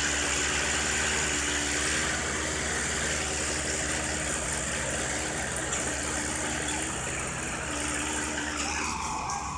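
Diesel engines of a Mahindra 575 and a Swaraj 855 tractor running steadily under heavy load, hauling an overloaded log trolley stuck in mud. The drone eases slightly near the end.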